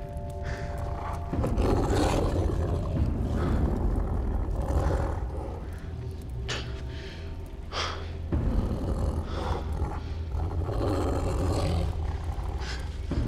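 Wolves growling low and menacingly in irregular bursts of a second or two, over a steady low rumble.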